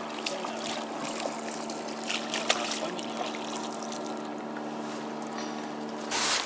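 Outboard motor running steadily at low revs, with water lapping at the boat; a brief rush of noise comes near the end.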